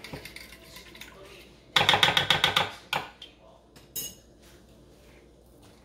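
A utensil stirring melted butter and dry rosemary in a bowl, with a quick burst of rapid clinking against the bowl about two seconds in, then a couple of single clinks, the last one ringing briefly.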